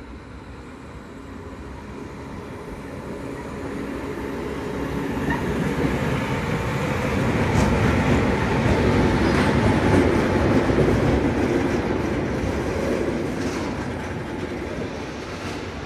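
Class 230 'Ludmilla' diesel locomotive passing by at close range: its diesel engine and wheels on the rails grow louder as it approaches, are loudest about halfway through, and fade as it pulls away.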